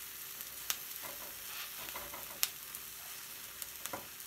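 Tomatoes, serrano peppers, onion and garlic sizzling as they char in a hot cast iron skillet while tongs turn them, with a few sharp clicks of the tongs against the pan. The loudest click comes about halfway through.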